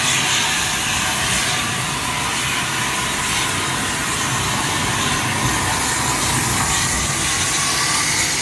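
Heavy-duty steelworks-type oxy-fuel cutting torch burning through thick steel, a loud, steady hiss of the oxygen cutting jet.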